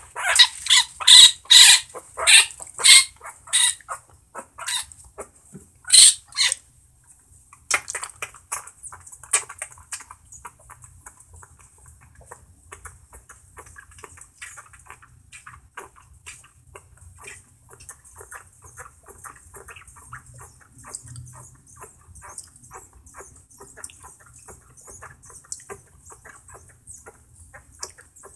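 Baby raccoon crying: a run of loud, high-pitched calls in quick succession over the first six or seven seconds, then quieter rapid smacking and clicking as it suckles at a bottle.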